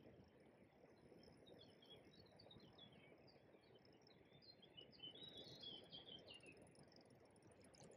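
Faint birdsong: small birds chirping over and over, busiest around five to six seconds in, over a low, quiet outdoor hiss.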